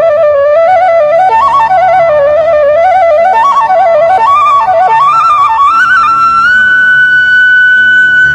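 Background music: a solo melody in quick, ornamented stepping notes, settling on a long held high note near the end.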